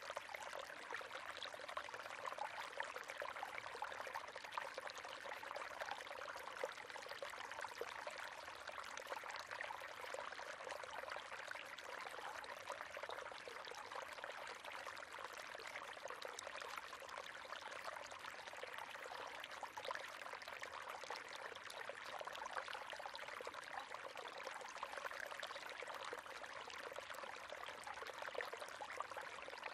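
River water flowing steadily: a continuous rush with many small splashes and gurgles, carried mostly in the middle and upper range with little low rumble.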